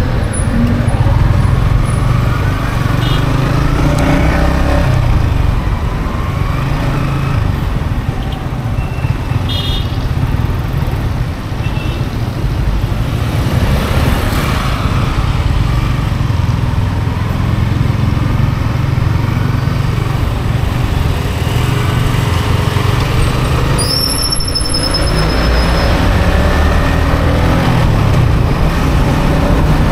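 Yamaha XSR 155's single-cylinder engine running under way in traffic, its pitch rising and falling as the rider speeds up and slows down.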